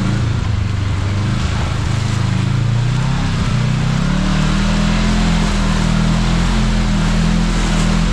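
Kawasaki KRX side-by-side's engine running under way on a dirt trail, with tyre and wind noise; the engine climbs in pitch about three seconds in and then holds steady.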